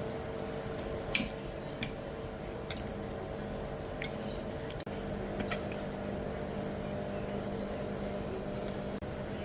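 Tableware clinking and knocking five or so times, the first clink the loudest, over a steady hum in the room.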